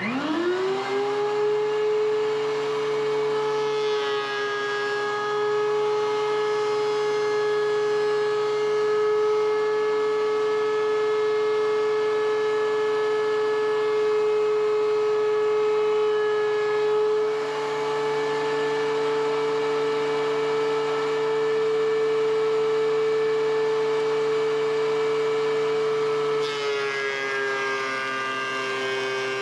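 DEWALT DW735 thickness planer's motor spinning up from rest with a quick rise in pitch, then running with a steady high whine. Its pitch shifts slightly a few times and drops a little near the end.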